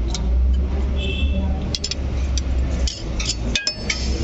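Light metallic clinks and ticks of a steel feeler gauge and ring spanner against the rocker arms and tappet adjusters of a diesel engine's valve gear, during tappet clearance setting. A few short ringing metal tones sound about a second in and again near the end, over a steady low hum.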